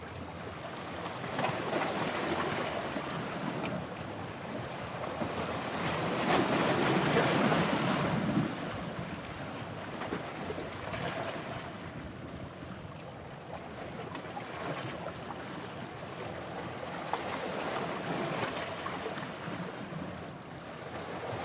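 Surf on a beach: waves washing in, with wind on the microphone. The wash swells a couple of times, loudest about six to eight seconds in, then eases off.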